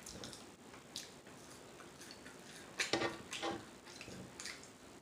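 Faint wet mouth clicks and lip smacks of someone chewing food: a sharp tick about a second in, a short cluster around three seconds in, and a few softer ticks near the end.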